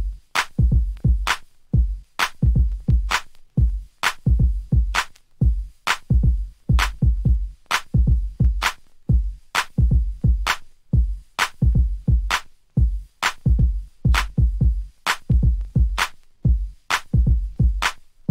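Bare Baltimore club drum-machine beat: deep booming kicks and sharp snare or clap hits in a fast, steady, repeating pattern, with no vocals or other instruments.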